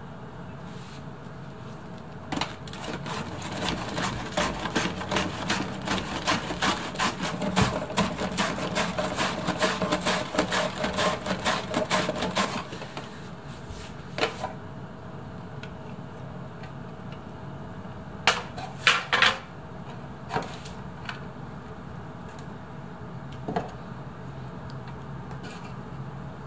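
Cabbage being shredded on a handheld mandoline slicer over a plastic catch box: a quick run of rasping slicing strokes for about ten seconds, then a few scattered clicks and knocks as the slicer and box are handled.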